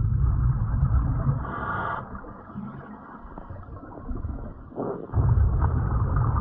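Exhaled breath bubbling out of a vintage US Divers DA Aquamaster double-hose scuba regulator, heard underwater as a low rumble, twice. The first burst ends about two seconds in with a short hiss, and the second starts about five seconds in.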